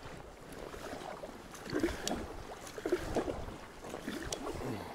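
Kayak paddle strokes on a river: irregular water splashes and drips as the blades dip and lift.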